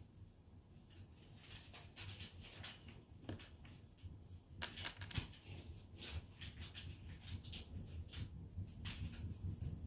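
Toothpicks clicking and rattling: a run of light, irregular clicks and ticks that grows busier about a second and a half in.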